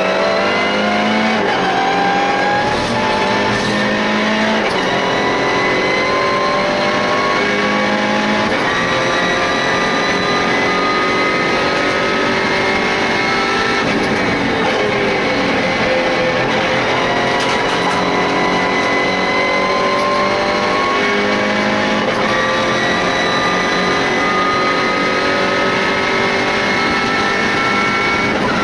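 MINI Challenge race car's engine under full throttle, heard from inside the stripped cockpit, its pitch climbing slowly along a straight with a drop about halfway through before it climbs again, over steady road and wind noise.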